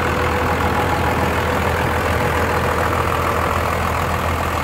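1994 Dodge Ram 2500's Cummins 5.9-litre 12-valve inline-six turbo diesel idling steadily, heard with the hood open.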